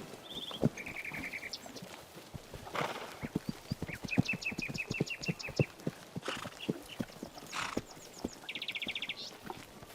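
Horses' hooves clattering irregularly on the ground as a herd moves about. A small bird trills fast runs of repeated high chirps three times over it.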